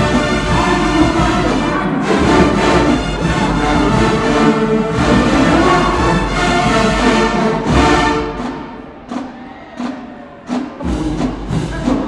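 HBCU marching band playing, with brass and drums at full volume. About eight seconds in, the full sound drops away to a few scattered accented hits, and the whole band comes back in near the end.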